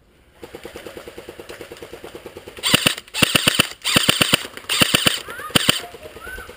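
Airsoft electric guns firing on full auto. A faint, steady rattle runs at about a dozen shots a second, then from about two and a half seconds in come five loud, short bursts close by.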